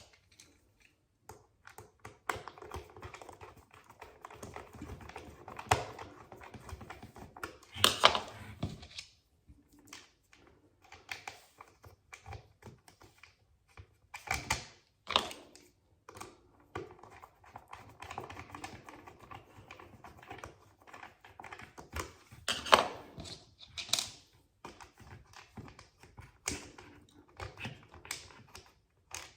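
Irregular clicks, taps and short scrapes of the Dyson V6 vacuum's plastic parts being handled, fitted and screwed back together.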